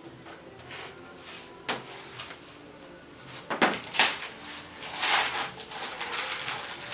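Objects being handled and knocked: a sharp knock a little over a second and a half in, two louder knocks around three and a half and four seconds in, then a rustling scrape about five seconds in.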